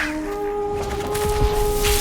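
Music: a single long held note with a low rumble underneath.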